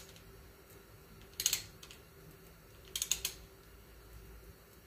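Ratchet wrench on the crankshaft balancer bolt of a small-block Chevy clicking in two short quick runs about a second and a half apart, as the engine is turned slowly clockwise by hand.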